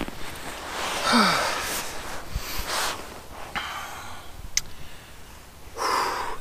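A person breathing heavily close to the microphone, with soft swishes of fabric, while settling under a blanket in a hammock; a single small click about two-thirds of the way through.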